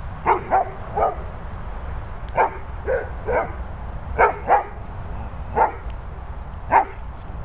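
A dog barking in short, sharp barks, about ten in all, coming singly and in twos and threes with pauses between them: alert barking at something unseen that the owner doubts is there.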